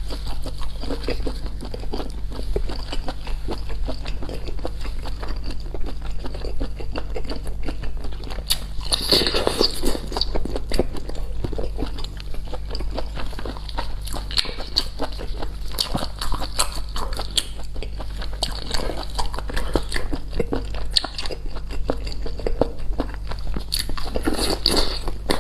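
A person biting and chewing while eating spicy sea snails, with many small clicks and crunches, over a steady low hum.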